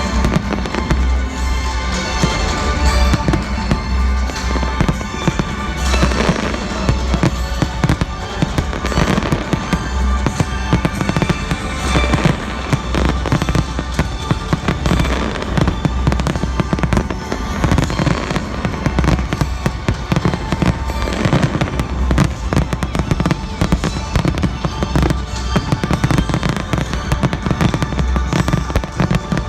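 Fireworks display going off continuously: dense rapid bangs and crackling, over loud music with a pulsing bass.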